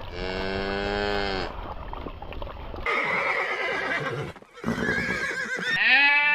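Separate farm-animal calls cut one after another: a horse neighing, then near the end a loud, wavering bleat.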